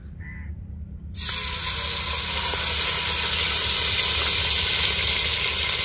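Biryani masala powder hitting hot ghee in a steel pot and sizzling. It starts suddenly as a loud hiss about a second in and holds steady.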